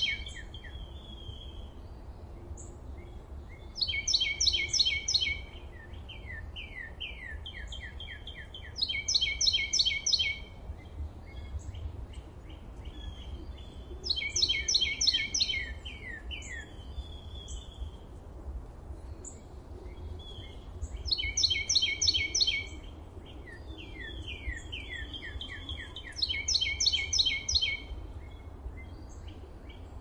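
A songbird singing the same short, rapid phrase about every five seconds, with softer chirps in between, over a steady low rumble.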